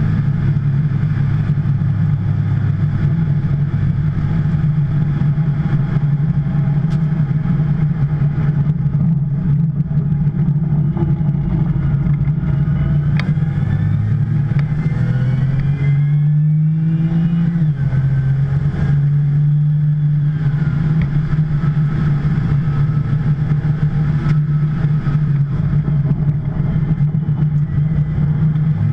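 Onboard engine sound of a 2010 Porsche 911 Turbo's twin-turbo flat-six under way on track, over wind and tyre noise. Its note holds fairly steady, climbs for a few seconds past the middle, drops at an upshift, then starts climbing again near the end.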